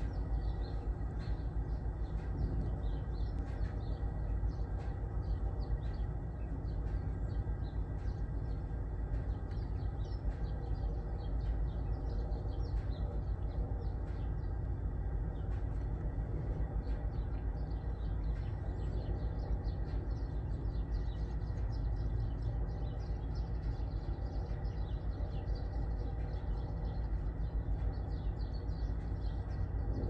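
Many short chirps from small birds, coming in quick runs, over a steady low rumble that is the loudest thing throughout.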